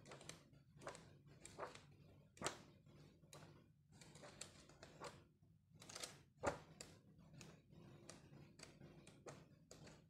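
Heavy coated-paper pages of a large photo album being turned one after another: a faint swish or flap with each page, about one or two a second, two of them louder flips, one a quarter of the way in and one past the middle.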